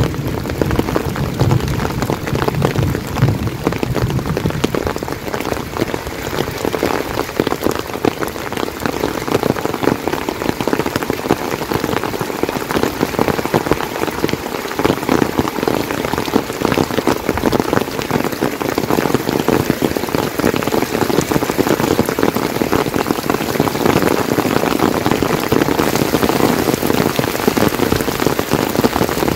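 Heavy monsoon rain falling steadily, a dense patter of drops. A low rumble fades out over the first few seconds.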